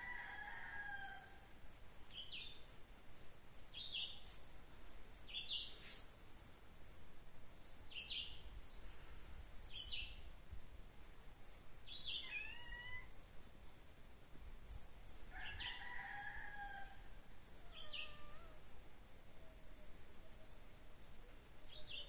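Forest birds calling: short high chirps repeating about once a second, a quick high trill for a couple of seconds near the middle, and a few longer, lower falling calls.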